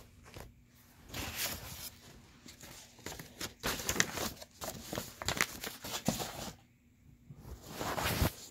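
Crinkling and rustling, as of bags or papers being handled, in irregular bursts with short pauses between.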